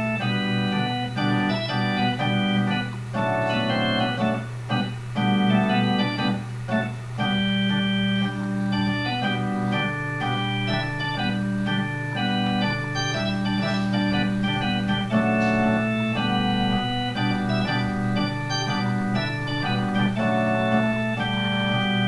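Improvised electronic keyboard music with an organ sound: sustained chords and melody notes that change every second or so over a steady held low bass note.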